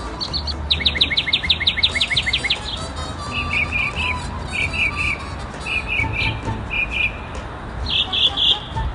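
Mockingbird singing, going through its repertoire: a fast run of about ten sharp down-slurred notes, then short chirps repeated in twos and threes, then higher triplets near the end.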